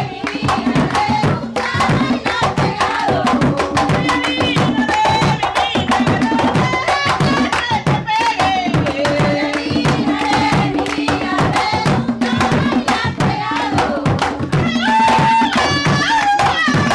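Panamanian tamborito: a woman's lead voice singing over a fast, steady beat from a set of tamborito drums, hand-played drums and a caja struck with two sticks, with hand clapping.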